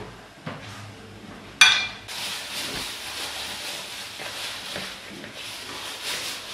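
A sharp knock about one and a half seconds in, then a soft, steady rustle as flour is scattered over a marble worktop.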